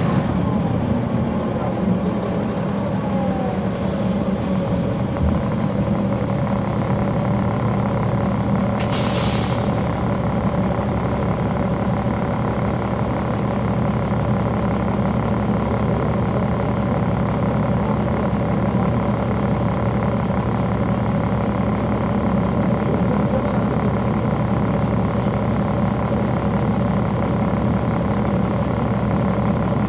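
Caterpillar C13 diesel engine of a NABI 40-foot transit bus running steadily, heard from the back seats inside the bus. About nine seconds in there is a short hiss of released air.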